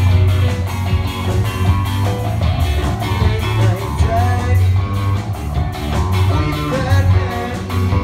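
Live band playing a ska-rock song: electric and acoustic guitars strumming over a steady drum beat and a bass line.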